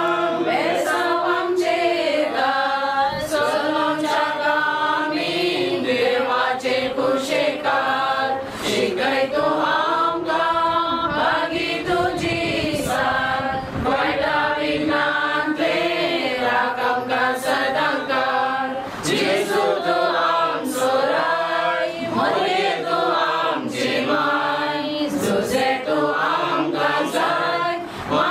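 Choir singing a hymn, several voices together in long sustained phrases.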